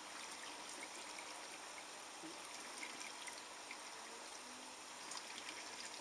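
Bosch dishwasher filling: a faint, steady trickle of water running into the machine's side water tank. The fill is flowing freely, with the float chamber and pressure switch freshly cleaned of gunk.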